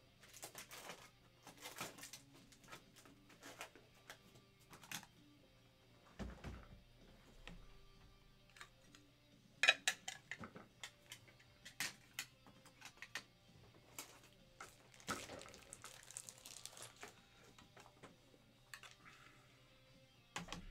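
Faint, scattered clicks and light rustling of small items being handled at a desk, over a low steady hum.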